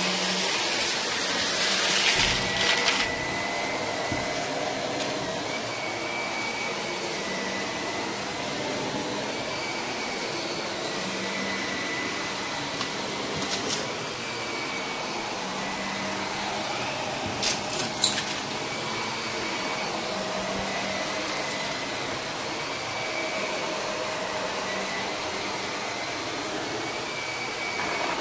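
Shark upright vacuum cleaner running on carpet, pushed back and forth, its motor pitch shifting slightly with each stroke. It is louder and brighter for the first few seconds, and a few short crackles of debris being sucked up come around the middle.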